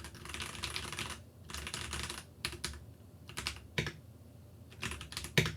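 Keychron K6 Pro mechanical keyboard being typed on, its brown switches clacking. Two quick rattling runs of keystrokes come first, then single key presses spaced out, including the thocky spacebar.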